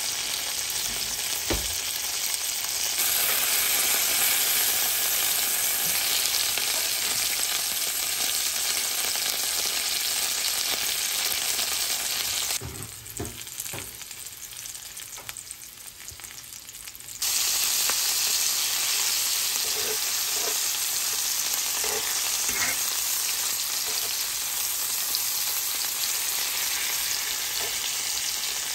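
Battered alligator meat frying in hot oil in a cast iron skillet, a steady sizzle. The sizzle drops to a quieter level for about four seconds around the middle, and a few light clicks sound over it.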